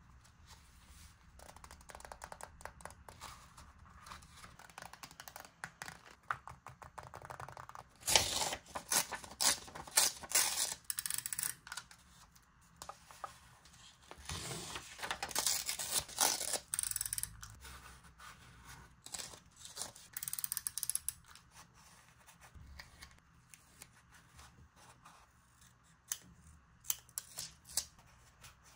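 Scissors snipping through paper, with paper being handled close to the microphone: a run of crisp snips and rustles that get louder and denser twice in the middle.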